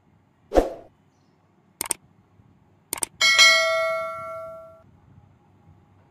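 A beagle barks once about half a second in. Then come two quick double clicks and a bright bell ding that rings out for about a second and a half: the click-and-bell sound effect of a subscribe-button animation.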